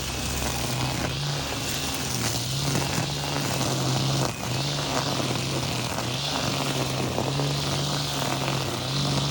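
High-power battery brush cutter running at a steady speed while cutting grass: a steady motor hum, wavering slightly in pitch with the load, over a hiss from the cutting head, with a brief dip about four seconds in.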